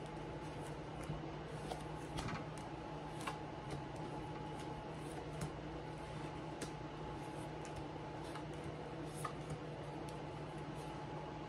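Pokémon trading cards being handled and laid down on a table: scattered soft clicks and taps at irregular intervals over a steady background hum.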